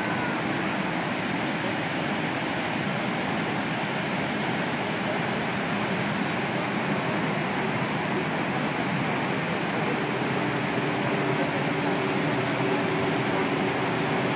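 Niagara's American Falls: an even, unbroken rush of water pouring over the brink and crashing onto the rocks below, holding at one level throughout.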